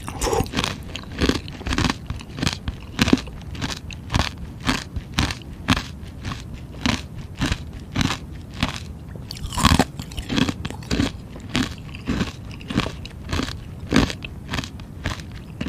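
Close-miked crunching of frozen ice being bitten and chewed, in a steady run of sharp crunches about two a second, with one louder crunch a little before ten seconds in.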